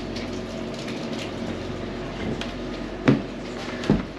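Footsteps on wooden temple steps: two heavy thuds a little under a second apart near the end, over a steady ambient background.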